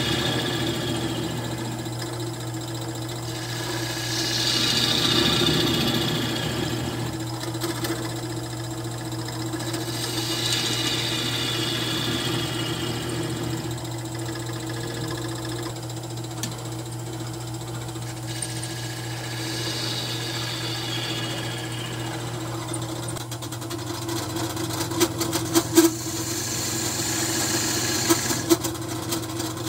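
Wood lathe running steadily while a gouge cuts into a spinning cherry-burl plate blank: several cutting passes, each a scraping hiss that slides down in pitch. Near the end a few sharp ticks break in as shavings fly off.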